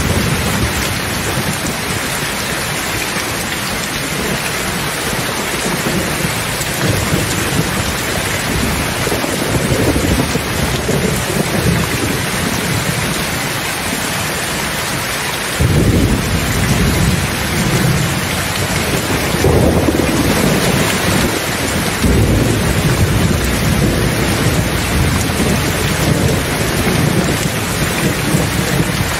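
Steady heavy rain with thunder rumbling low beneath it. A deeper roll of thunder comes in suddenly about halfway through and keeps rolling to the end.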